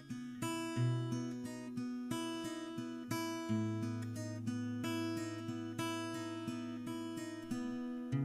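Background music: acoustic guitar playing gentle picked chords, notes sounding at an even pace and the chord changing every few seconds.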